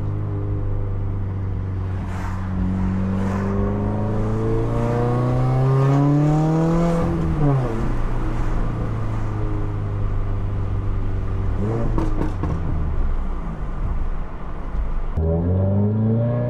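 Turbocharged flat-four of a 2015 Subaru WRX fitted with a catted TurboXS J-pipe, heard from inside the cabin while the car accelerates. The engine note climbs steadily for several seconds, falls away about seven seconds in, holds steady, and starts climbing again near the end.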